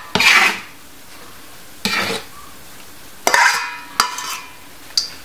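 Chef's knife scraping and tapping against the rim of a stainless steel mixing bowl, three scrapes about a second and a half apart, followed by a sharp tap. The metal rings briefly after the louder strokes.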